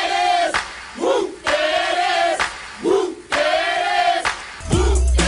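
A group of voices chanting long held notes, about one a second, each with a short rising note after it. A music track with a heavy bass comes in near the end.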